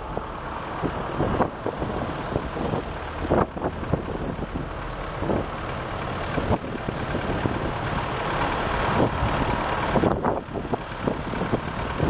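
Cars, vans and trucks idling and creeping in a snowbound traffic jam: a steady engine rumble, broken by irregular thumps.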